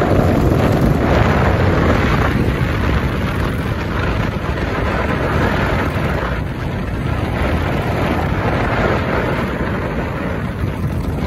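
Royal Enfield Bullet's single-cylinder engine running steadily at cruising speed, mixed with heavy wind noise on the microphone.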